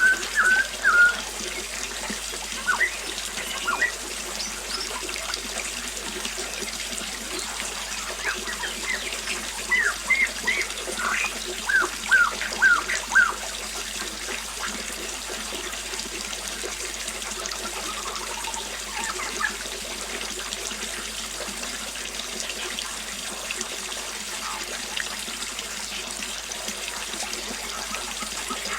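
Small waterfall running with a steady splash, while birds chirp in short quick calls, most of them in the first half and only a few near the end.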